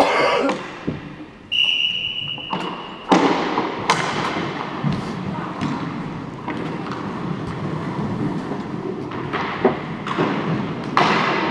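Hockey play on a rink: sharp knocks of sticks and puck over the steady scraping of skates. A high steady whistle sounds about a second and a half in and lasts about a second and a half.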